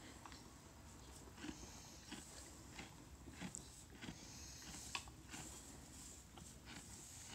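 Faint, scattered rustles and soft clicks of straw bedding as a foal noses through it and steps across it.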